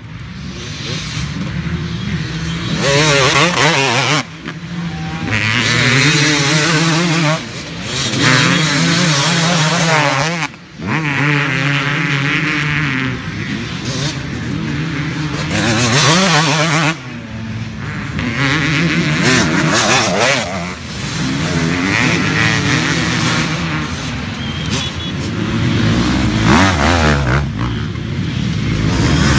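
Motocross dirt bike engines racing past, revving hard and falling away again and again as riders work the throttle and shift, with several bikes heard over one another. The engine note drops out briefly a few times where the throttle is chopped.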